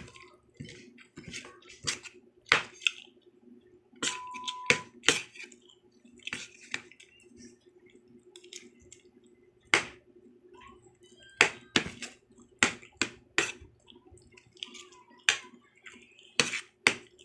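A person eating close to the microphone: irregular sharp clicks and smacks of chewing, with a faint steady hum underneath.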